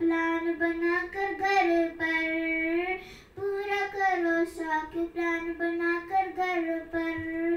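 A young girl singing solo and unaccompanied, holding long, steady notes with gentle bends in pitch. There is a short break for breath about three seconds in.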